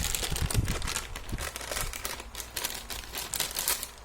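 Packaging crinkling and rustling as it is handled during the unboxing of a diecast airliner model, in a quick irregular run of crackles that eases off toward the end.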